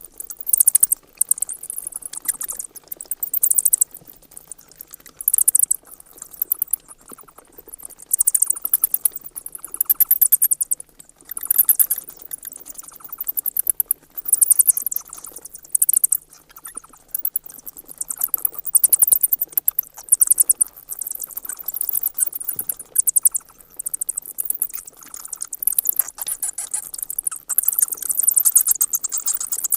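Bat calls: trains of rapid, very high squeaky chirps and clicks, in bursts of a second or two with short gaps between.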